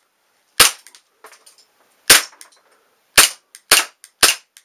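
Green-gas airsoft Glock 19 pistol fired five times in sharp, cracking shots: one about half a second in, another near two seconds, then three in quicker succession about half a second apart. Faint small ticks follow some of the shots.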